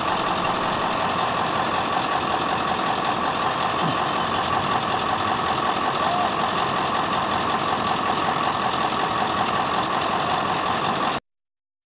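An engine idling steadily, with a fast, even rhythm to it; the sound cuts off suddenly near the end.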